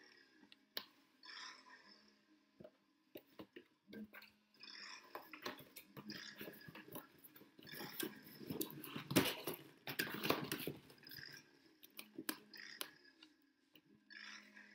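Cardboard box being handled, its flaps folded and pressed shut: irregular rustling, scraping and tapping of cardboard, busiest and loudest in the middle.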